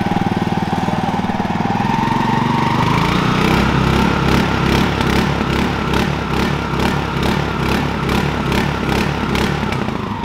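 Mud Skipper 7.5 HP single-cylinder surface-drive mud motor running out of the water, just started. Its speed rises about two to three seconds in, then it holds at a higher, slightly uneven speed with a regular pulse.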